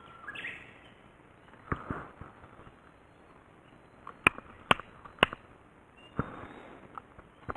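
A few sharp clicks and knocks over a quiet outdoor background. Two come about two seconds in, and the loudest are three knocks about half a second apart a little past the middle.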